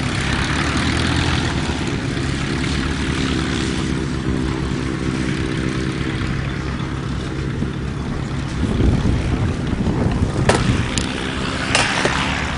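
Piston-engined propeller aircraft running steadily, an even low drone of engine tones; a few sharp knocks near the end.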